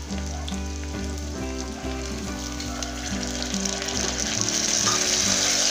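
Onions, carrots, drumstick pieces and green peas sizzling in hot oil and ghee in an aluminium pressure cooker, the sizzle growing louder about four seconds in. Background music plays underneath.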